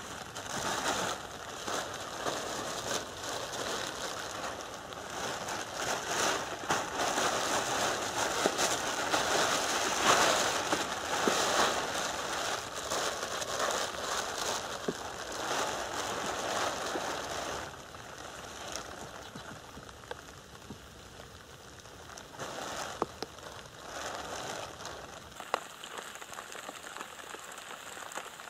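Thin plastic rain poncho rustling and crinkling loudly as it is unfolded and pulled on over the head, with rain pattering. It quietens after about two-thirds of the way, and near the end there is a steady light patter of rain on the river's surface.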